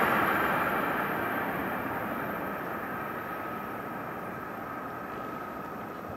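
Rumble of a train that has just passed, dying away into the distance and fading steadily throughout.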